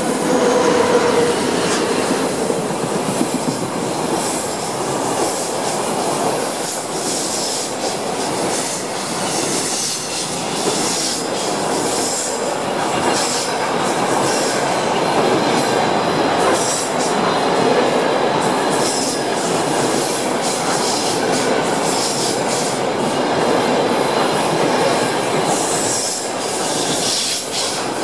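SBB freight train passing at speed on a curve. The Re 6/6 and Re 4/4 electric locomotives go by first, then a long string of swapbody container wagons rumbles and clatters past steadily. High-pitched wheel squeal comes and goes.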